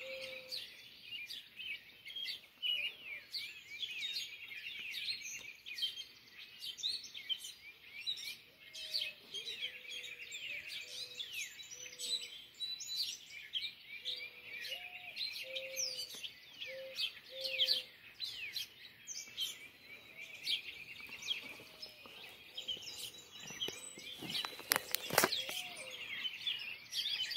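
Dawn chorus: many birds chirping and singing at once in quick high chirps and trills, with soft, short low notes repeating underneath. A brief crackling knock about 25 seconds in.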